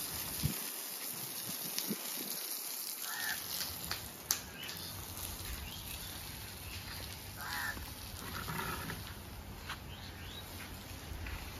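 Garden hose spraying water onto bare dirt, a steady hiss, with birds calling a few short times in the background.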